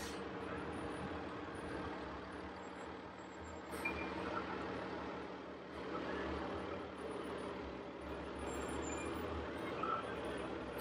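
Fire engine running as it rolls slowly past, a steady low rumble.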